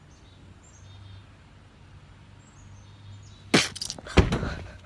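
A low steady hum, then about three and a half seconds in a sharp crack followed by a quick run of knocks and a heavier thump.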